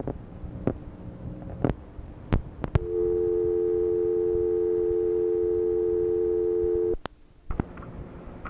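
Telephone dial tone recorded on an answering-machine message cassette after a caller hangs up. A few clicks come first, then the steady two-note dial tone runs for about four seconds and cuts off suddenly, followed by a brief hush and a couple more clicks.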